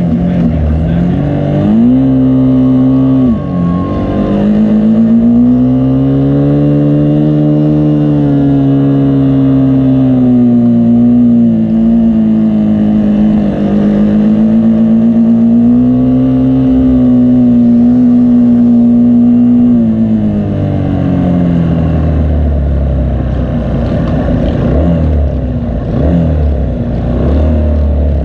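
Racing vehicle engine held at high revs, its pitch dipping and climbing in the first few seconds and then holding fairly steady with gentle rises and falls. About twenty seconds in, the revs drop away to a lower, rougher rumble.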